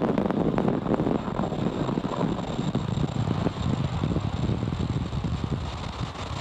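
Falcon 9 rocket noise on the launch feed: a steady crackling rumble that eases slightly toward the end.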